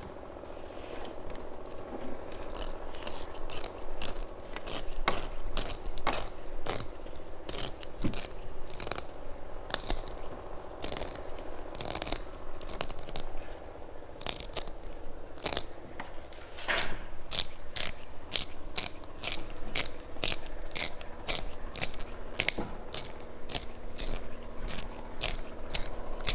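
Kinetic sand giving crisp, crunchy strokes, about two a second, coming faster and sharper from a little past halfway.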